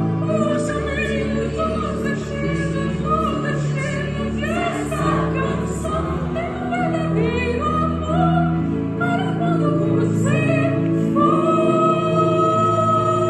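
Music with singing voices in an operatic, choir-like style over sustained held accompaniment notes.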